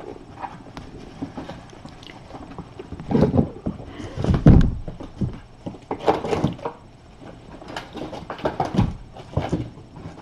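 Kittens being handled and playing on a fleece mat: irregular rustles, knocks and small animal sounds, with the loudest thump about four and a half seconds in.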